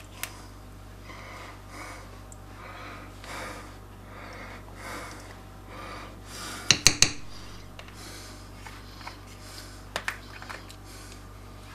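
A metal spoon scraping processed cheese out of a plastic tub in soft strokes, a little more than once a second. About two-thirds of the way through come three sharp taps of the spoon against the pot or tub, then two lighter taps near the end.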